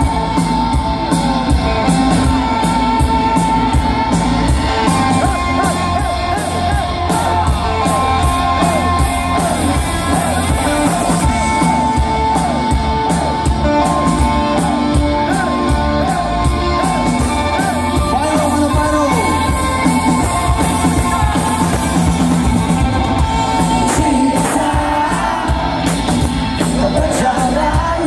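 Live band playing a song with a singer, electric guitars and a steady drum beat, loud and heard from within the crowd.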